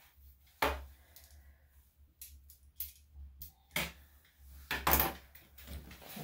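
Grooming scissors snipping a Yorkshire Terrier's leg coat in light scattered clicks, with a few louder knocks about half a second in and again around four and five seconds in.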